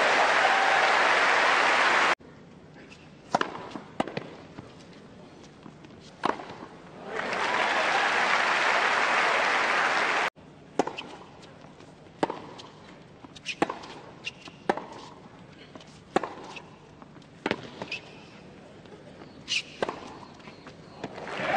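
Tennis rallies: a ball struck back and forth by rackets, sharp single pops about every second and a half. These alternate with two bursts of crowd applause that cut off suddenly.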